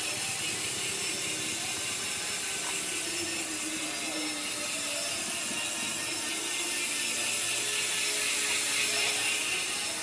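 Koozer XM490 six-pawl rear hub freewheeling as the wheel spins: the pawls click over the ratchet ring so fast that they merge into a steady, high-pitched buzz.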